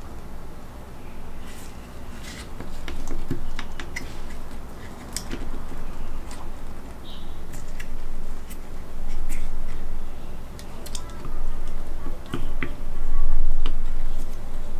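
Irregular small clicks and taps of a mecha action figure's plastic and metal chest armour panels being handled, swung open and seated, over a steady low hum.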